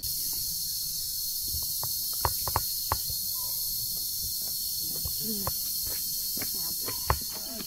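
Dense, steady high-pitched chorus of insects, with scattered light clicks and taps beneath it.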